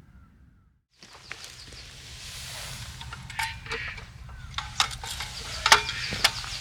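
Birds calling in short cries over a steady rushing hiss, with several sharp clicks or knocks. It starts about a second in, after a moment of silence.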